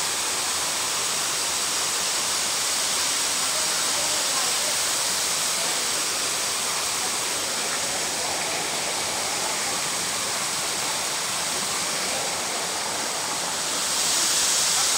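Waterfall cascading onto rocks: a steady, unbroken rush of falling water, getting a little louder near the end.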